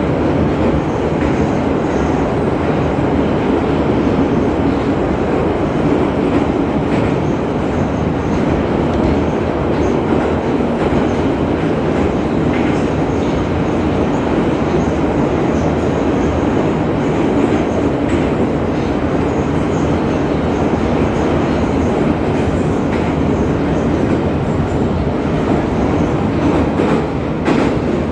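81-717.5P metro car running at speed between stations, heard from inside the carriage: a loud, steady rumble of wheels on rail and running gear.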